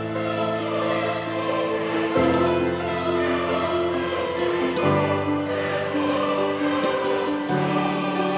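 Slow background music with sustained choir-like chords that change about every two and a half seconds.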